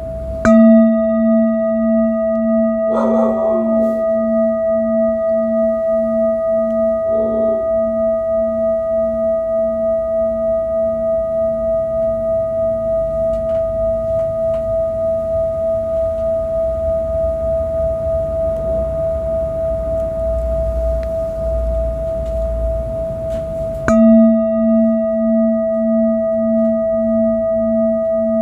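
Large metal singing bowl struck about half a second in and again near the end, ringing with a steady high tone over a lower tone that throbs about twice a second and fades out after several seconds.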